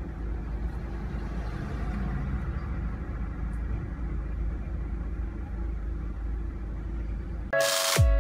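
Steady low rumble of a car engine idling. Near the end a sudden loud burst with a falling low tone cuts in as electronic outro music begins.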